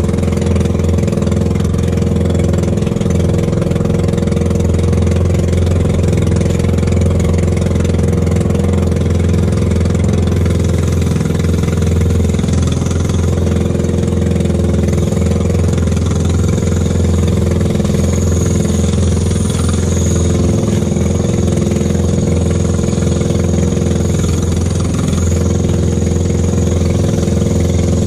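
Small engine of a motorised outrigger fishing boat running at a steady speed while trolling.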